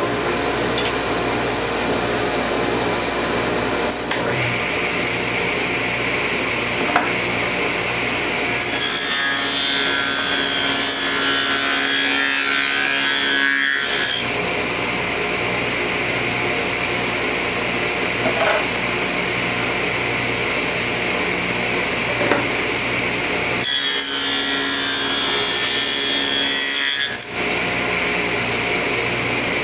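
Table saw running steadily while cutting a quarter-inch-deep dado groove in pine boards. Two passes through the wood, about nine and twenty-four seconds in, each lasting a few seconds, are louder and fuller than the running in between.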